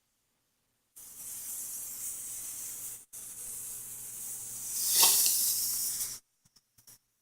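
A ground firework hissing as it sprays sparks. The hiss briefly drops out once, swells to its loudest near the end and cuts off suddenly.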